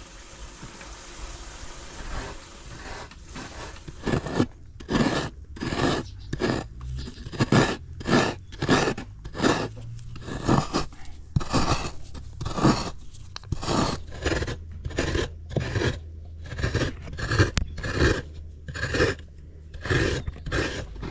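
Fresh coconut meat being grated by scraping a coconut half over the serrated metal blade of a stool-mounted coconut grater. Repeated rasping strokes start about four seconds in and keep a steady pace of about one and a half strokes a second.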